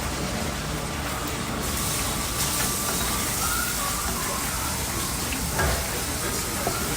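Garlic sizzling in hot oil in a pot, a steady hiss that grows louder and brighter about a second and a half in.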